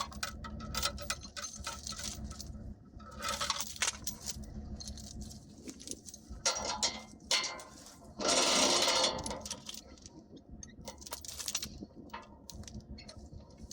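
Steel chain clinking and rattling as it is handled and hooked up for a pull, with a louder rasping scrape about eight seconds in. A steady low hum runs underneath.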